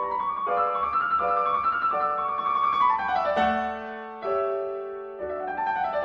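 Background piano music: a flowing melody of quick notes, with a falling run just before the middle and a new chord struck a little after it.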